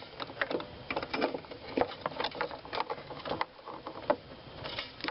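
Irregular light clicks and rattles of a small plastic-and-metal part being handled: the blower motor resistor that has just been pried out of its mounting catches.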